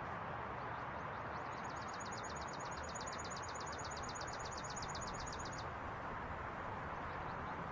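Quiet outdoor ambience: a steady even hiss and hum. About a second and a half in, a rapid high-pitched trill starts, about ten short chirps a second, and runs for about four seconds.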